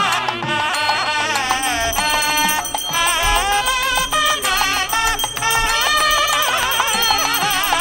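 Background music: an ornamented melody that wavers in pitch, over steady percussion.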